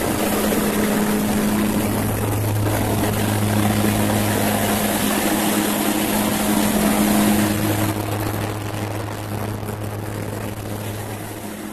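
Cabin noise of a propeller-driven military transport aircraft in flight: a steady low drone with rushing air noise, fading toward the end.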